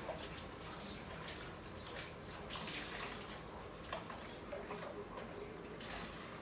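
Water running from a kitchen tap into a sink while dishes are washed by hand, with scattered light clinks and knocks of dishes and plastic.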